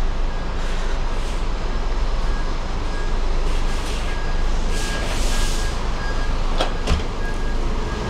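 Street traffic with a heavy vehicle's engine rumbling low and steady, a brief hiss about five seconds in and two sharp clicks just before seven seconds.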